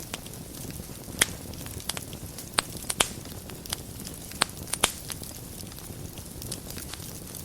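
Wood fire burning in a fireplace: a steady low rush of flame with sharp, irregular crackles and pops from the burning wood, the loudest pops a little over a second in and around three seconds.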